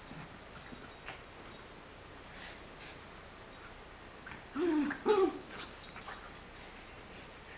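A dachshund and a French Bulldog play-wrestling, with two short dog vocalisations in quick succession about five seconds in, each rising and falling in pitch.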